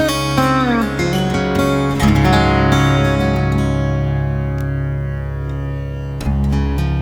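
Background music led by guitar, with sustained bass notes, a falling slide near the start and a fresh chord struck about two seconds in.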